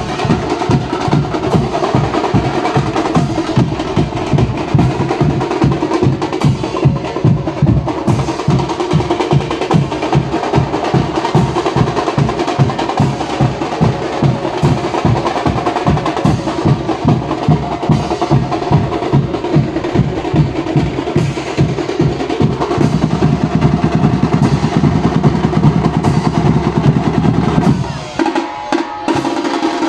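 Dhol-tasha drum troupe playing: big double-headed dhol drums beat a fast, steady rhythm with rattling tasha strokes over it. The drumming drops away briefly near the end.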